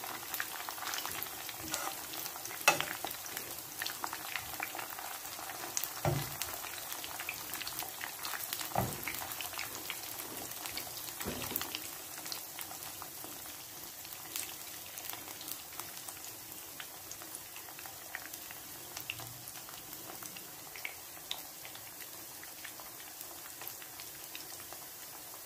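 Seaweed-wrapped chicken pieces shallow-frying in hot oil in a pan: a steady sizzle full of small crackles and pops, with a few sharper clicks in the first half, easing slightly in the second half.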